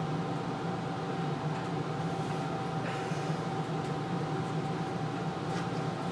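Steady mechanical hum with a constant tone, as of a fan or motor running, with a faint brief rustle about three seconds in.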